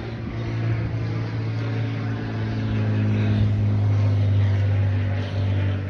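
A motor vehicle passing by: a steady low engine hum that grows louder toward the middle and then fades.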